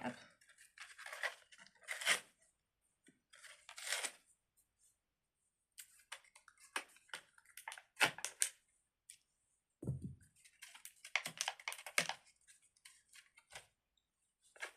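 Fidget-toy packaging being cut open with scissors: irregular snips, crinkling and tearing, with a low thump about ten seconds in.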